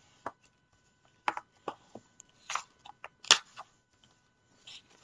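Hands opening a hardcover picture book and turning its stiff pages: a string of short paper-and-card rustles and taps, the loudest about three seconds in.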